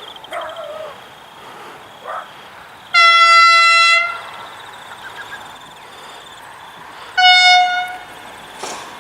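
Australian train horn sounding two single-note blasts, a steady one of about a second and then a shorter one about four seconds later.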